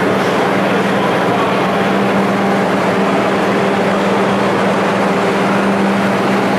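Loud, steady machinery drone with a constant low hum, as on a working ro-ro cargo deck while a roll trailer is towed in.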